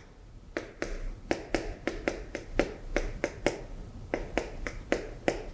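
Chalk tapping and scratching on a blackboard in quick short strokes as small gear teeth are drawn, making sharp clicks at about four a second.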